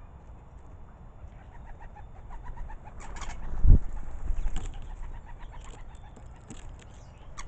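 Goldfinches and starlings chirping and twittering in quick short calls. About three seconds in comes a louder flurry, like wings flapping, ending in a low thump.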